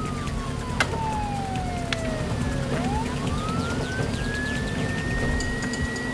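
A siren wailing: one clear tone slides slowly down from high to low over about three seconds, then rises back up and holds high. A steady low hum runs underneath, with a couple of sharp clicks in the first two seconds.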